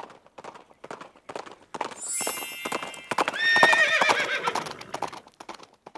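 Horse hooves clip-clopping in a steady trot, about three hoofbeats a second. Over them a horse whinnies from about two seconds in, a long wavering neigh that is the loudest sound, fading before the end.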